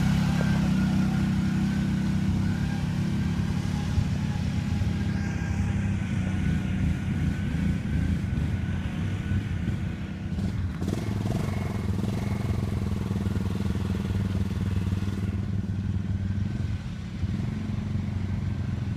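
ATV (quad bike) engine running steadily under way.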